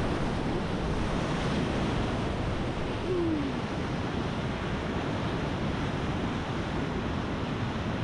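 Steady rush of whitewater on a river rapid, loud and even throughout.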